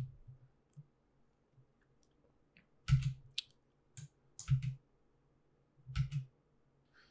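Clicks of a computer keyboard and mouse at a desk, in three short clusters about a second and a half apart.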